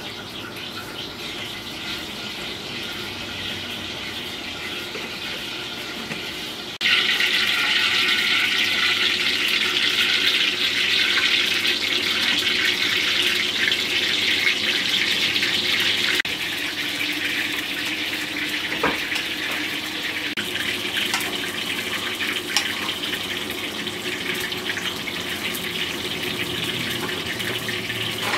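Water running steadily, as from a tap, with an even hiss that gets abruptly louder about seven seconds in and drops back about halfway through.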